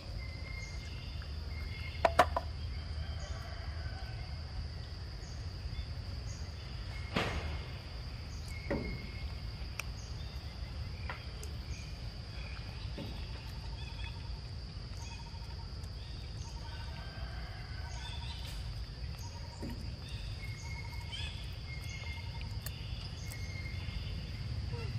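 Steady high-pitched drone of forest insects, with short repeated chirps and a few sharp clicks, the loudest about two seconds in, over a low rumble.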